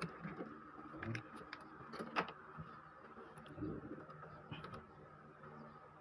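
Scattered light plastic clicks and taps as the ink-tube dampers are worked loose and unclipped from the printhead carriage of an Epson L3110 inkjet printer, over a faint steady hum.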